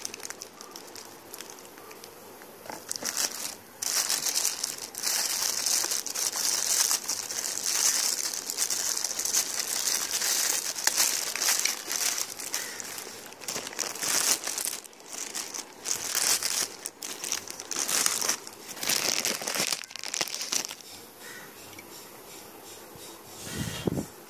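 Clear plastic packaging bag crinkling as it is gripped and pulled off a speaker, in uneven bursts of crackle that stop a few seconds before the end.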